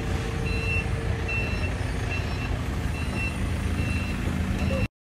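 Forklift engine running with its reverse alarm beeping, a short high beep repeating a little more often than once a second, while it carries a crated woodworking machine. The sound cuts off abruptly near the end.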